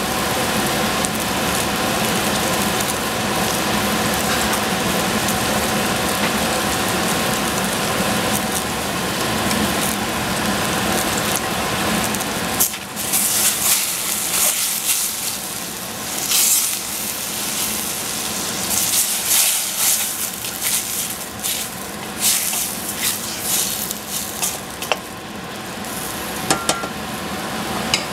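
Food sizzling as it fries in a pan. The sizzle is steady at first; from about halfway it comes in louder, irregular spurts.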